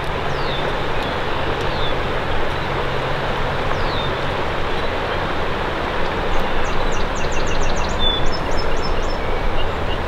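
Steady rushing of a river flowing, with a few faint, high bird chirps and short trills over it.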